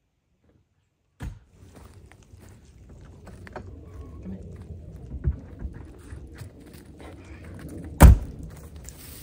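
Intech Luna Rover camper trailer's side door being handled, with a few soft knocks, then shut with one loud thunk about eight seconds in.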